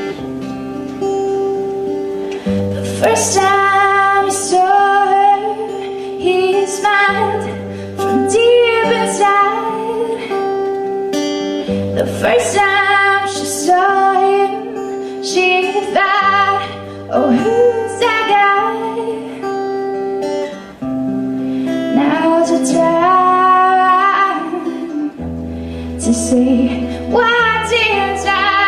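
A woman singing while strumming an acoustic guitar. The guitar plays alone for about the first two and a half seconds before her voice comes in, then she sings in phrases of a few seconds each over the strummed chords.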